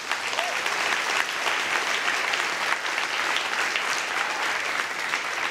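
A congregation applauding and cheering, a steady dense clapping in a large hall.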